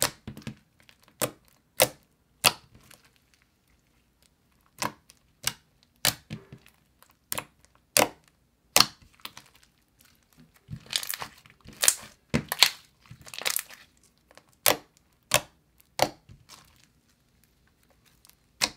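White slime with foam beads being poked, stretched and folded by hand, giving sharp, irregularly spaced clicks and pops, with a busier crackly run a little past halfway.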